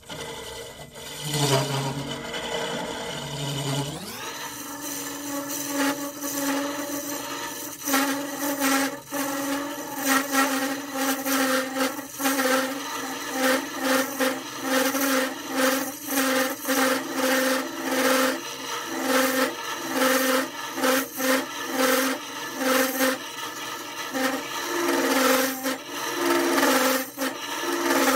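Wood lathe running while a carbide tool scrapes and cuts inside the end grain of a small tea tree (melaleuca) vase to hollow it, in repeated rasping strokes about a second apart. The motor's pitch rises sharply about four seconds in as the lathe speeds up.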